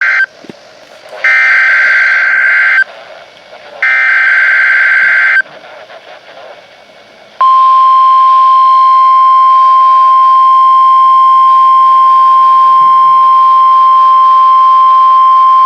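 NOAA Weather Radio Emergency Alert System weekly test. The tail of one SAME digital header burst is followed by two more buzzy, warbling data bursts of about a second and a half each, with hiss between them. From about seven and a half seconds in, the steady 1050 Hz weather radio warning alarm tone sounds.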